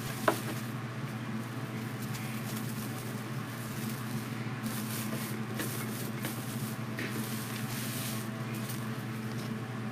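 Foil deco mesh rustling and crinkling softly as it is handled, over a steady low hum.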